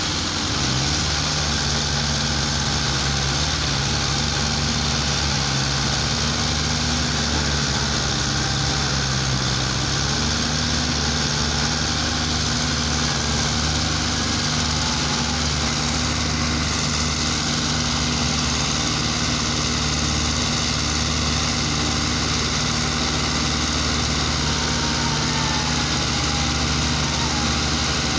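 Belarus tractors' diesel engines running hard under heavy load as they strain to pull a loaded trailer stuck in mud: a steady drone whose note shifts about ten seconds in.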